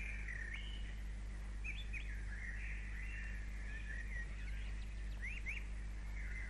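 Birds chirping: many short, quick up-and-down calls, over a low steady hum.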